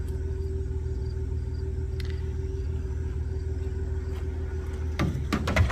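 Pickup truck engine idling steadily, a low rumble with a constant hum heard from inside the cab. A few sharp clicks come near the end.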